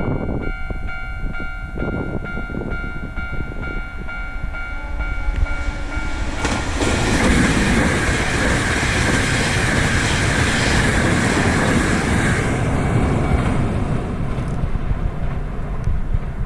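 Japanese level-crossing alarm ringing with steady repeated tones. About seven seconds in, a Hankyu 9300 series limited express train passes at speed with wheels clacking over the rail joints, and the rush of the train eases off after about twelve seconds.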